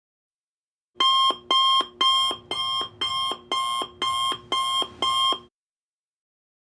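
Alarm-clock beeping sound effect: nine electronic beeps, about two a second, starting about a second in and stopping suddenly.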